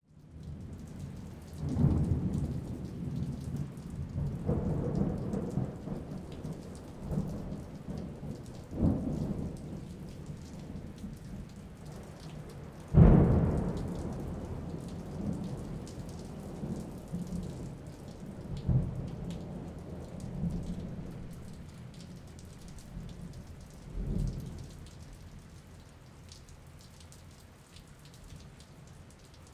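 Steady rain falling, with repeated low rolls of thunder. About midway a sudden sharp thunderclap, the loudest sound, rumbles away over several seconds, and the thunder grows fainter toward the end.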